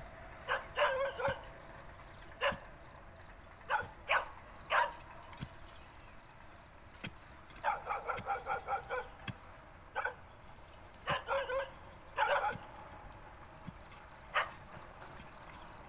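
A dog barking and yipping in short bouts of sharp calls, with a quick run of about six yips in the middle. Now and then come faint knocks of a digging bar striking soil.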